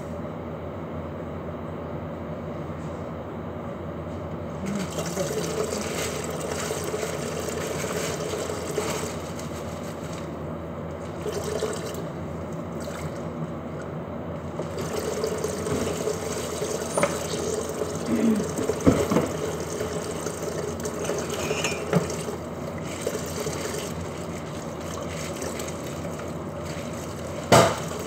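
Lidded pot of water simmering on a gas stove: bubbling liquid over a steady rush, with a few light knocks and a sharper one near the end.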